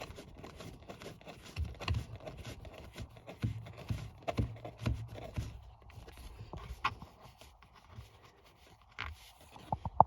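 Parts of a pickup's center console being worked loose and popped out by hand: irregular clicks, knocks and scrapes, easing off after about six seconds, then a few sharp clicks near the end.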